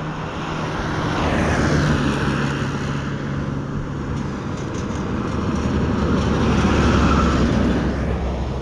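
Road vehicles passing close by: the noise swells and fades about two seconds in, then swells again toward the end as a truck goes past.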